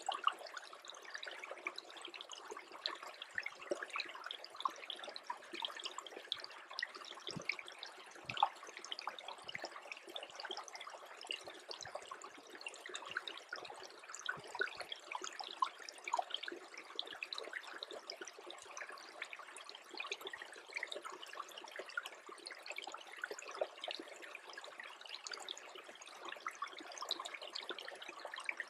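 Small creek trickling and bubbling as it freezes over: a steady, dense patter of tiny drips and clicks, with no low rumble.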